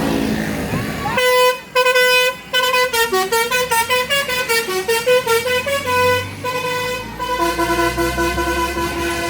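Basuri telolet horn on a bus playing a tune: a quick run of short stepped notes that falls and climbs back in pitch, then a few longer held notes near the end. It starts about a second in.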